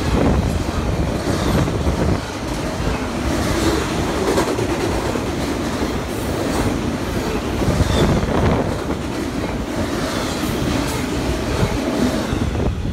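Double-stack container freight train passing close by: the steady rumble of steel wheels on rail with an irregular clickety-clack. The top of the sound thins right at the end as the last well car goes past.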